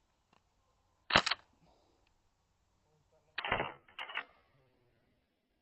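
Airsoft gun firing: a sharp double crack about a second in, then a short burst of shots followed by two quick clicks at around three and a half to four seconds.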